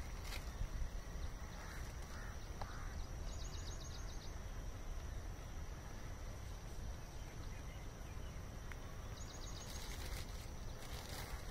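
Open-field ambience: a low rumble of wind on the microphone under a steady high whine, with two short trains of rapid high chirps, one about three seconds in and one near the end, and a few sharp clicks near the end.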